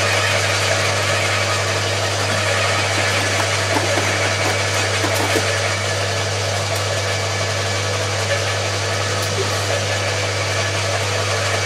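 Two electric roller garden shredders, a Bosch AXT 2300 and an Atika LH 2500, running steadily with a constant motor hum while thuja branches are fed through them.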